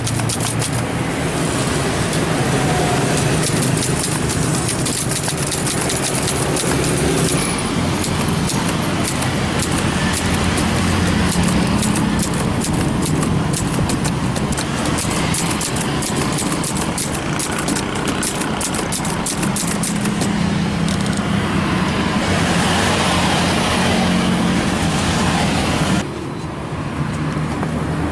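Manual Brother typewriter being typed on in quick runs of clacking keystrokes, over steady road-traffic noise. The keystrokes stop about twenty seconds in, leaving the traffic.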